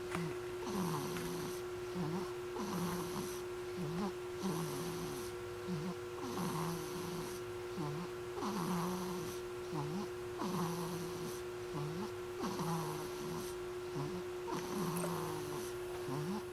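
A sleeping baby snoring: a rhythmic, low rasping snore on each breath, about one every two seconds, over a steady faint hum.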